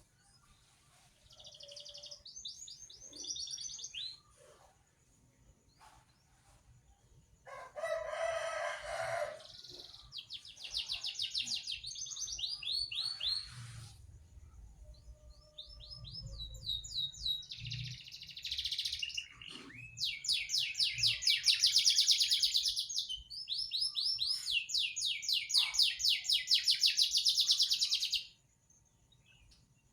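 A songbird singing fast, high trills of rapidly repeated notes in several bouts, with a harsher, rasping call about eight seconds in. The song is loudest in the second half and cuts off suddenly near the end.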